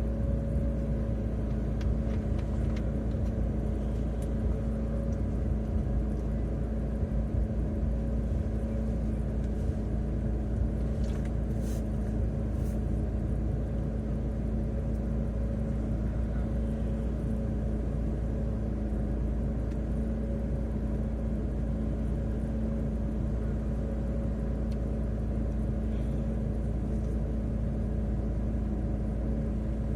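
Car driving, heard from inside the cabin through a dashcam: steady engine and road rumble with a constant low hum.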